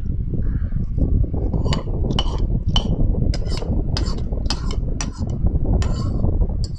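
Metal spoon and fork clinking and scraping against a ceramic bowl while eating, a run of about a dozen sharp clinks starting about two seconds in, over a steady low rumble.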